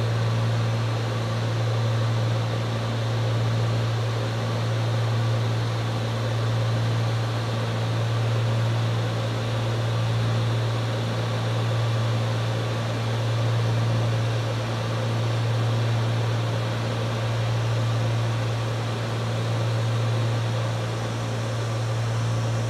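Cockpit drone of a Cessna 310's twin piston engines and propellers in flight: a steady low hum with a hiss of airflow over it. It swells and fades slowly every two seconds or so, the beat of two propellers turning at slightly different speeds.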